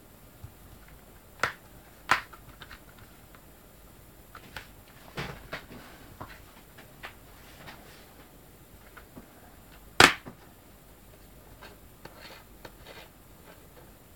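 Handling noises from a DVD boxset and its slim plastic cases: scattered clicks, taps and knocks at irregular moments. The sharpest is a single loud click about ten seconds in.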